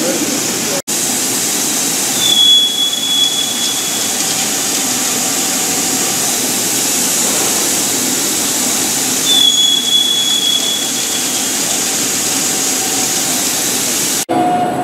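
Kinetic K5000xmc CNC plasma cutting machine cutting steel plate: a loud steady hiss from the plasma torch, with a thin high whine coming in twice for a second or two. The sound breaks off for an instant just under a second in and again near the end.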